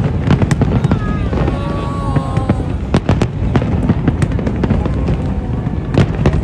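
Fireworks display: a dense run of sharp bangs and crackles over a continuous low rumble, with a few long gliding tones about a second in.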